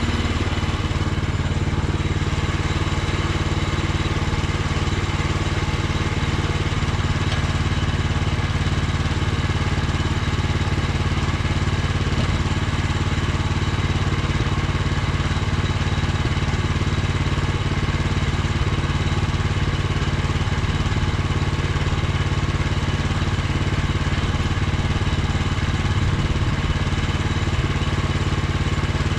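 Petrol engine of a Woodland Mills HM126 portable bandsaw sawmill running steadily at working speed, with a slight shift in its pitch about six seconds in.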